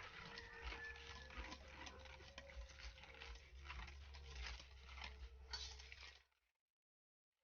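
Faint mixing of creamed butter, sugar and an egg in a bowl: irregular soft clicks and scrapes over a low steady hum. The sound cuts off abruptly about six seconds in.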